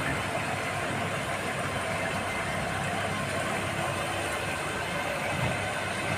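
A steady low mechanical hum with an even hiss over it, like a running engine.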